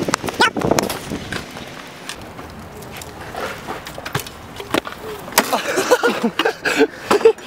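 BMX bike being ridden for a jump: a run of knocks and clatters from the tyres and frame on hard ground.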